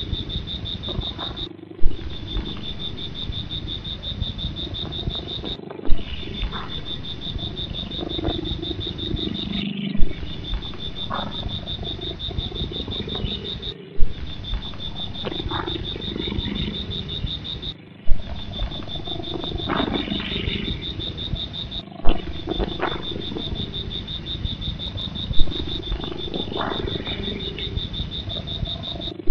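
A looped big-cat growl sound effect over a steady high tone, breaking off and restarting about every four seconds with a sharp click at each restart.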